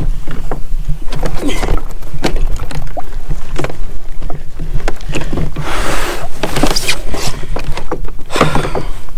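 Repeated knocks and bumps on a plastic fishing kayak as the person in it shifts his weight and handles gear, over a steady low hum, with two bursts of water splashing at the hull about six and eight and a half seconds in.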